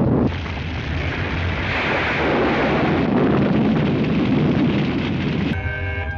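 Film sound effects of explosions and crashing destruction: a continuous heavy rumbling roar. About five and a half seconds in, music with sustained chords comes in over it.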